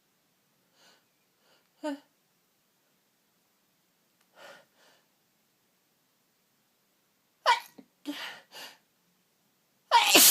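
A woman sneezing in a fit. A short catching gasp comes about two seconds in, then a faint breath. A sharp sneeze follows about seven and a half seconds in, with two short noisy breaths after it. Another loud sneeze starts near the end.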